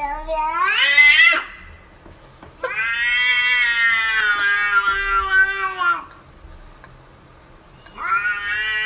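Domestic cat yowling in three drawn-out calls: the first rises in pitch and breaks off about a second and a half in, the second is long and steady for about three seconds, and the third rises again near the end.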